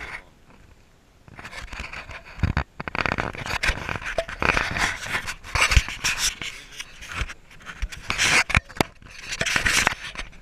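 Fingers rubbing, scraping and tapping on a small action camera's housing close to its microphone, an irregular scratchy rustle broken by clicks. It starts about a second in, after a brief quiet spell.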